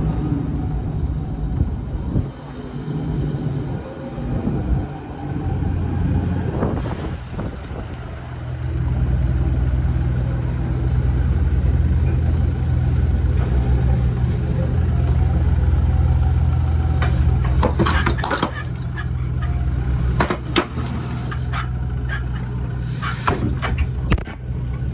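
Forklift truck engine running steadily nearby, growing louder about a third of the way in as it works close by. Knocks and clatter come near the end.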